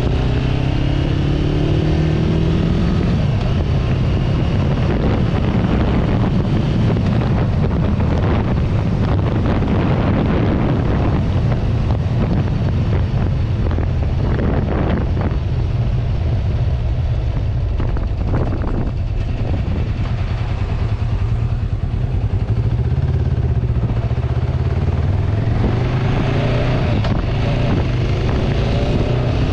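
1994 Kawasaki Vulcan 500's parallel-twin engine running under way, rising in pitch as it accelerates in the first few seconds and again near the end, with a steady rush of wind and road noise.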